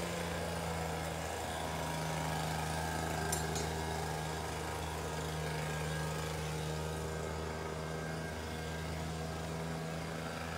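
A small engine running steadily at a low, even pitch.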